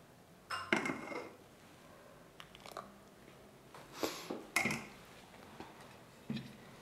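A metal ladle clinking against a stainless steel pot and ceramic dishware as broth is served, with a mug on its saucer being set down on the counter: a handful of separate clinks and knocks.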